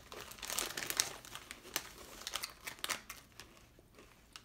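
Chip bag crinkling as it is handled: a dense crackle for about three seconds that then dies down.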